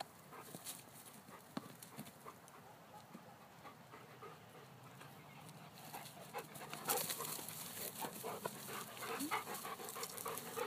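Weimaraner dog panting in quick short breaths, getting louder from about six seconds in, with a few sharp knocks.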